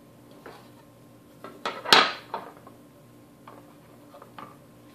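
Clacks and knocks of a plastic device case and its circuit board being handled and set down on a wooden tabletop. One sharp clack about two seconds in is the loudest, among a few lighter taps.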